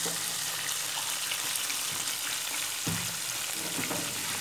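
A flour-coated piece of fermented sour pork (som moo) frying in shallow oil in a pan: a steady sizzle, with a faint click about three seconds in.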